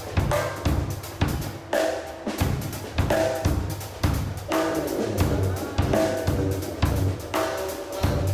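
Pearl Roadshow 5-piece acoustic drum kit played in a steady beat, with bass drum and snare strokes alternating over a wash of cymbals.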